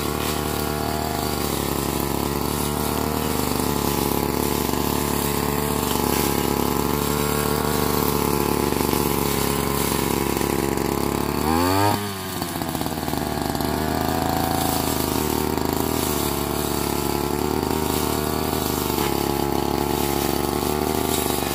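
A small petrol engine running steadily, its pitch wavering a little, then briefly falling and climbing back about twelve seconds in.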